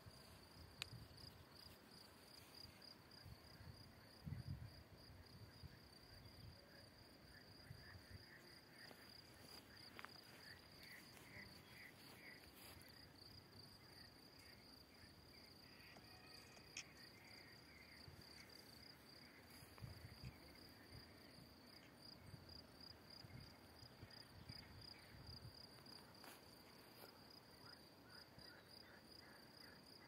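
Faint insect chorus trilling steadily at a high pitch, with patches of short repeated chirping notes and a few brief low rumbles.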